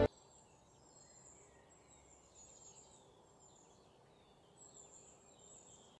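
Music cuts off right at the start, then near silence with faint high chirps scattered throughout.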